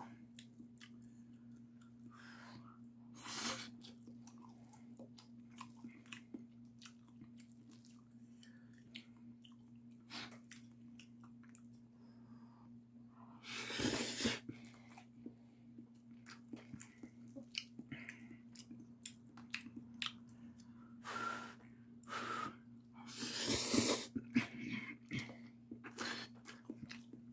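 Close-up mouth sounds of a person eating bibim-myeon (spicy mixed noodles): steady wet chewing with small smacks. There are a few louder, noisier bursts of slurping noodles about a second long, the biggest around the middle and near the end. A steady low hum runs underneath.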